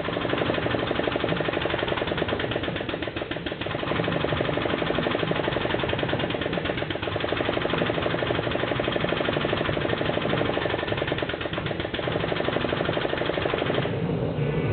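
Loud, steady shop machinery noise from a running forge and a compressed-air-powered hydraulic forging press squeezing hot steel, with a fast, even pulsing rattle. The noise thins out near the end.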